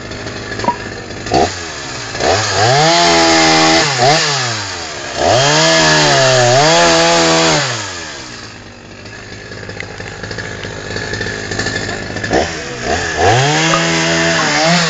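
Two-stroke petrol chainsaw idling and revved up to full throttle in bursts while cutting firewood logs. It runs at high revs twice in the first half, drops back to idle for a few seconds, then revs up again near the end.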